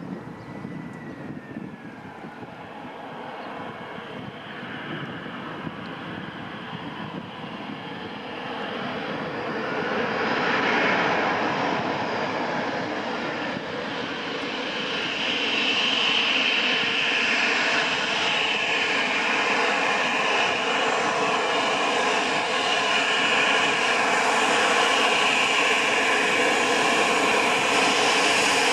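Airbus A319 airliner's jet engines, a whine over a broad rushing hiss, growing louder as the aircraft comes in to land. The level rises sharply about ten seconds in and again a few seconds later, then stays loud and steady.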